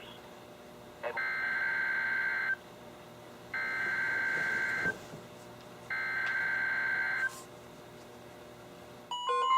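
EAS SAME header over NOAA Weather Radio: three bursts of warbling digital data tone, each about a second and a half long with a short hiss-filled gap between them. Near the end the steady weather-radio alert tone starts, together with the alarm beeps of the receiving radios.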